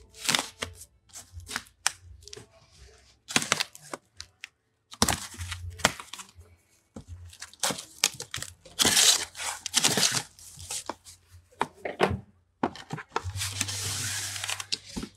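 Packing tape being torn off a cardboard box and the box's flaps pulled open: a series of noisy tearing and scraping bursts with short gaps, the longest near the end.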